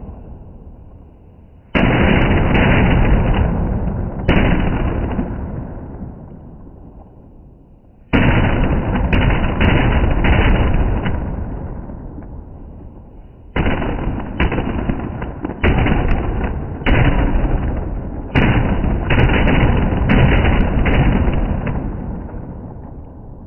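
A chatai firecracker mat, many small crackers woven together, going off on the ground in dense, rapid crackling volleys. The volleys start suddenly, the first about two seconds in, then several more in bursts. Each fades before the next catches, and the crackling dies away near the end.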